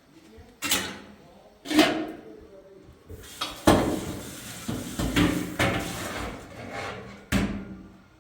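A series of loud bangs, about six of them, the middle ones run together with a clattering, ringing noise.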